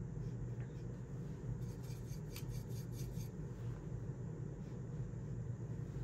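A steady low room hum, with faint soft scratching of a watercolour brush stroking across paper, a few quick strokes about two to three seconds in.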